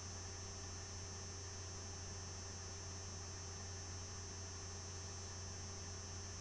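Steady low electrical hum with a faint hiss, unchanging throughout: the recording's background noise.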